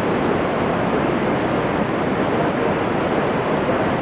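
Loud, steady FM radio static: the hiss of a 2-metre (145 MHz) FM receiver with no station's carrier on the channel.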